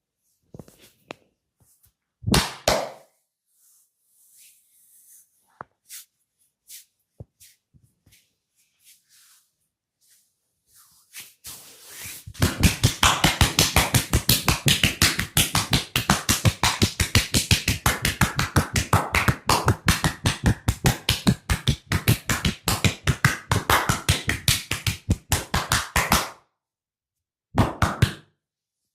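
Percussive massage: a masseuse's hands striking a person's body in fast, even slaps, about four or five a second, for roughly fourteen seconds starting about halfway through. Before that there are only scattered soft rubbing sounds and a short, louder rustling burst about two seconds in.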